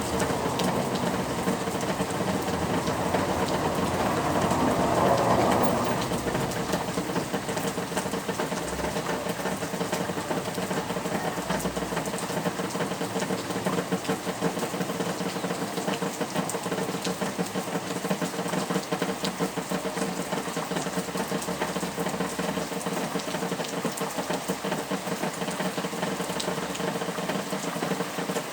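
Steady rain falling, heavier for the first six seconds or so and then settling to an even level.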